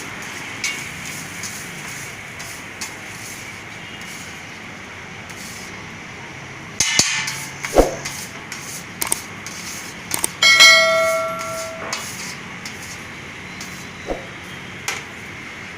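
Metal cooking utensils clanking and tapping, a spatula and steel plates on a griddle, over a steady hiss. One clang about ten and a half seconds in rings on for over a second.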